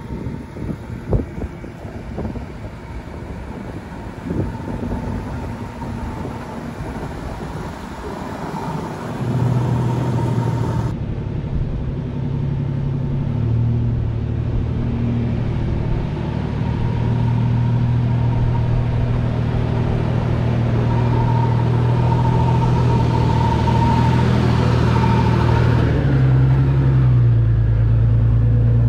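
Nissan Xterra's engine labouring in low gear as the truck crawls up a steep rock chute. Wind buffets the microphone for the first several seconds; after about nine seconds the engine drone gets louder and holds steady as the truck climbs toward and over the camera.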